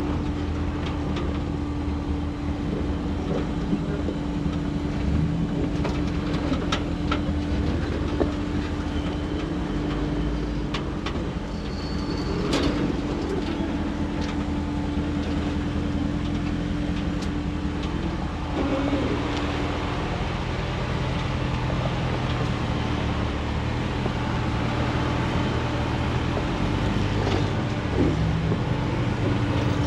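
Off-road 4x4's engine running steadily at low speed as it crawls down a rocky trail, with occasional clicks and knocks.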